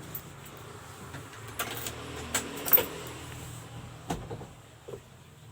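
Car engine idling through its stock exhaust, a steady low hum, with a few scattered clicks and knocks, the sharpest a little past halfway.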